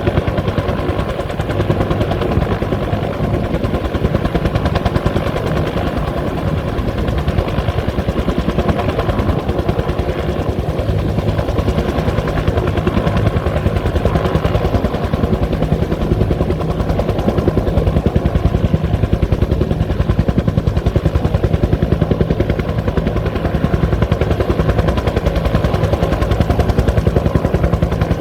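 Bell 205 helicopter running steadily, its two-bladed main rotor beating in a rapid, even thudding over the whine of its Lycoming T53 turboshaft engine.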